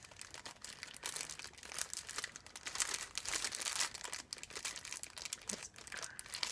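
Foil blind bag of a mystery mini figure crinkling irregularly as it is squeezed and handled by hand, the figure inside being felt through it.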